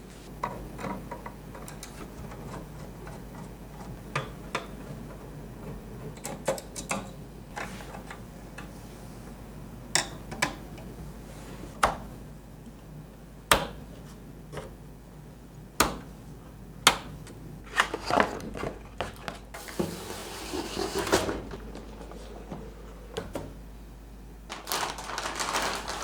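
Irregular clicks and knocks of hard plastic and metal computer parts being handled and fitted together during a PC build, with two brief rustling passages past the middle and a low steady hum underneath.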